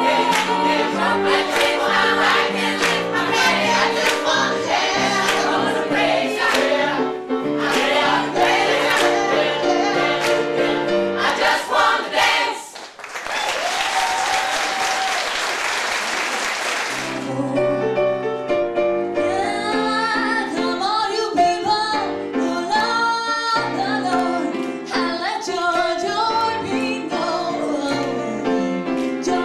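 Choir singing with instrumental accompaniment. About halfway through the singing stops and about four seconds of applause follow, then singing starts again with another song.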